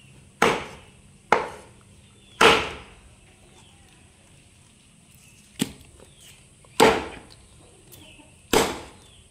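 A large knife chopping cooked goose meat on a round wooden chopping block: six sharp chops at uneven intervals, each dying away quickly.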